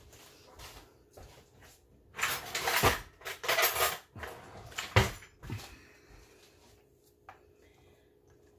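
Kitchen utensils clattering: two stretches of metal cutlery rattling, then two sharp knocks about five seconds in and a light click later on.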